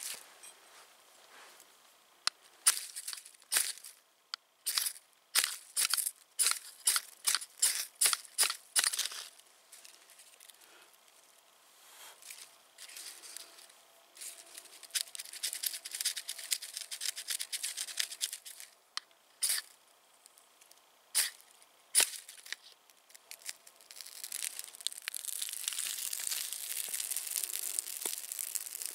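A knife blade scraping birch bark in a run of quick, sharp strokes, then a few single scrapes of a ferrocerium rod. Over the last few seconds the birch bark catches and burns with a steady hissing crackle.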